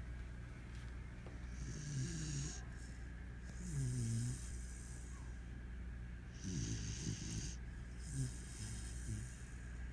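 A sleeping dog snoring: a low rasping snore with a breathy hiss on each breath, about every two to three seconds.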